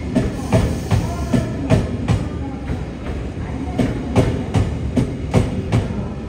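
Wheels of a JR West 273 series limited express clacking over rail joints as the train moves along the platform, under a steady rolling rumble. The clacks come in quick runs, about two to three a second, with a gap of about a second near the middle.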